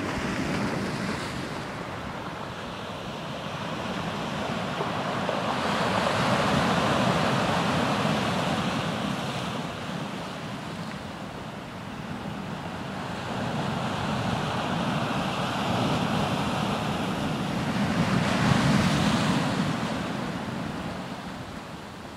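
Ocean surf breaking and washing up over a shore of rounded boulders and pebbles. It swells and ebbs in three slow surges.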